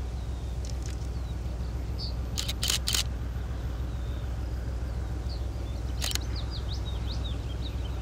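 M62 diesel locomotive's two-stroke V12 engine running as it hauls a freight train, a steady low throb. Birds chirp over it, and a few sharp clicks come about two and a half to three seconds in and again near six seconds.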